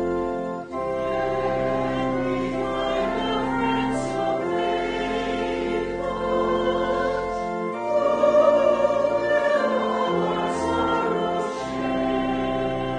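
Congregation singing a slow hymn over sustained accompanying chords, the notes changing every second or two. There is a short break between phrases about half a second in and another near the end.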